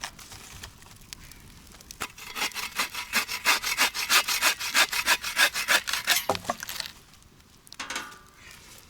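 A hand saw cutting through wood in a quick run of even back-and-forth strokes, lasting about four seconds before it stops.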